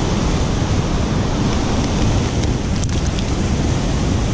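Surf breaking and washing up the beach, with wind buffeting the microphone in a steady rushing noise. A few faint ticks about three seconds in.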